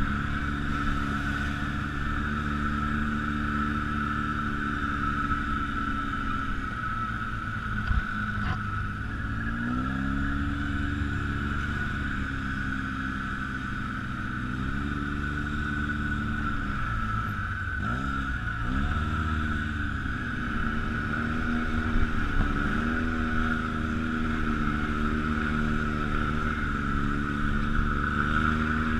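ATV engine running under throttle on a trail ride, its pitch dropping and rising several times as the rider eases off and opens up again, over a steady high whine.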